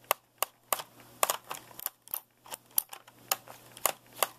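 A series of sharp, light clicks, about two or three a second, as the screw holding the bottom access plate of a Lenovo ThinkPad T410 laptop is turned out.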